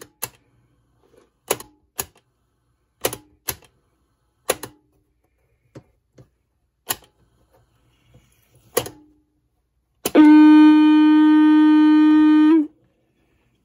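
Electra TC-505 reel-to-reel recorder's transistor amplifier sounding a steady, unchanging tone for about two and a half seconds near the end, which stops abruptly; a scattering of sharp clicks comes before it. The owner takes the tone for feedback in the amplifier, maybe from bad capacitors.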